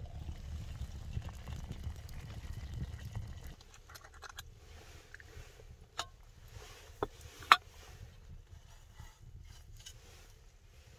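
Metal kettle being handled over a crackling wood fire: a few sharp metallic clinks in the second half, the last the loudest with a short ring. A low rumble in the first few seconds cuts off suddenly.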